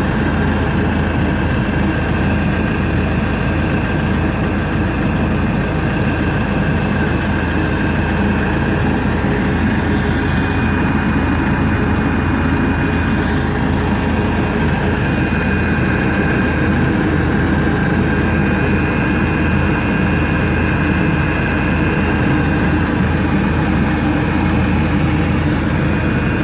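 Webasto diesel-fired auxiliary heater running after repair: a steady, unbroken machine noise with a low hum and a thin high whine on top.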